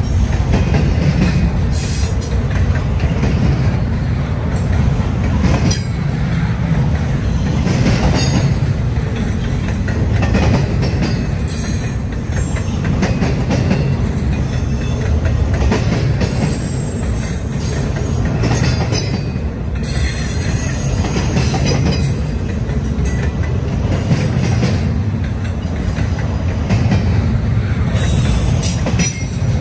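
Double-stack intermodal freight train rolling past at close range: a steady heavy rumble of steel wheels on rail, with irregular clanks and clicks as the well cars pass.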